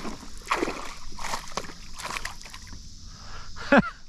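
Water splashing and sloshing beside a kayak in irregular bursts, as a crappie is brought to the boat. Near the end there is a brief, loud, falling vocal sound.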